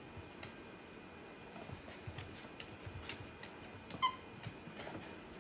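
A plush dog toy squeaks once, briefly, about four seconds in, as a beagle bites down on it. Around it there are faint scattered ticks and rustles from the dog moving and mouthing the toy on a hardwood floor.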